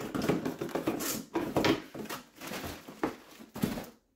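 A small cardboard shipping box being handled and opened by hand: irregular scraping, rustling and light knocks of cardboard and packing, which stop abruptly near the end.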